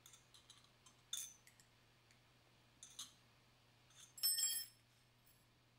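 Steel tools knocking against a steel mold on a workbench: a few light clicks, sharp metal knocks about one and three seconds in, then a loud ringing clank a little after four seconds as a long steel bar is handled against the mold.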